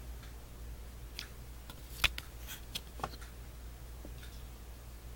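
Light clicks and scrapes of a cardboard perfume sample card being handled and turned over in the hands, the sharpest click about two seconds in, over a steady low hum.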